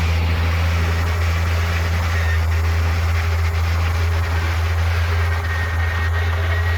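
Diesel engine of heavy earthmoving machinery running steadily with a deep, loud hum, with faint scattered clanks partway through.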